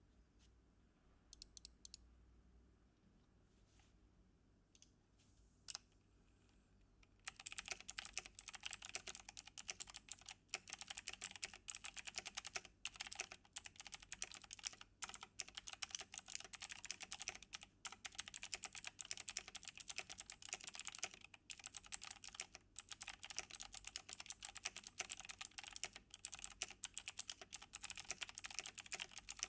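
Logitech G Pro X mechanical keyboard with clicky Kailh Blue switches: a few scattered key presses, then steady fast typing from about seven seconds in.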